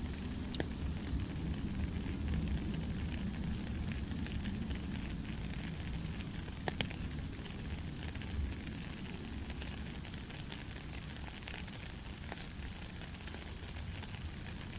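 Steady white noise for a baby's sleep: an even, low-weighted hiss with a few faint crackles scattered through it.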